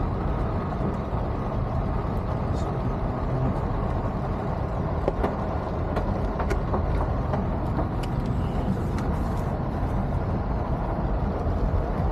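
Steady low rumble of a car, engine and road noise, with a few faint ticks scattered through.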